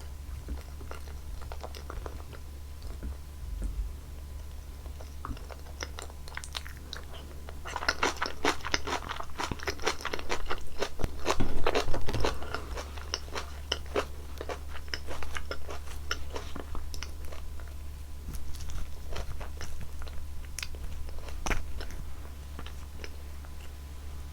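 Close-miked chewing of roasted pumpkin sweet potato: soft, wet mouth sounds with crisp crackles from the bites. They grow busier and louder from about eight seconds in, then thin out. A steady low hum lies underneath.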